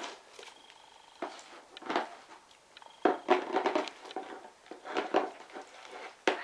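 Slime mixture with shaving gel being stirred in a bowl: irregular sticky squelching and crackling, with a few short knocks against the bowl about three, five and six seconds in.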